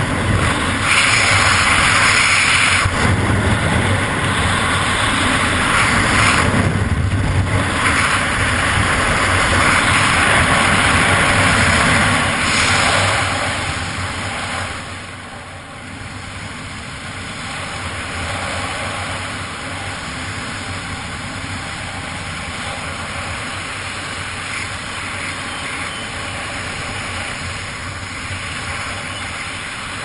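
Rushing wind buffeting the pilot's action-camera microphone during a fast speedflying descent, loud and gusty at first, then easing about halfway through to a lower, steady rush.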